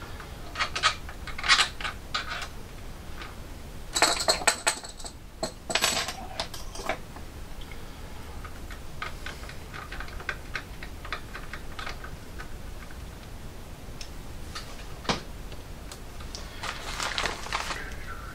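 Hands working on the wiring and plastic electronics cover of a 3D printer: scattered clusters of small clicks, taps and rattles, with one lone sharp click a few seconds before the end.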